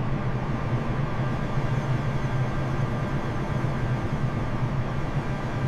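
Airliner jet engine noise in flight: a steady, even rushing with a low hum underneath.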